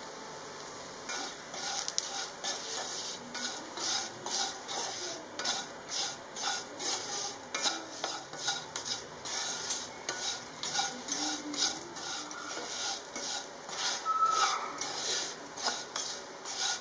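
Brinjal (eggplant) pieces sizzling in oil in a frying pan. From about a second in, a wooden spatula stirs and scrapes them through the ground spice powder in regular strokes, about two a second.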